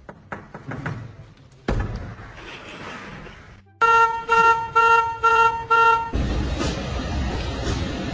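A car horn honking about six short toots in quick succession, over roughly two seconds.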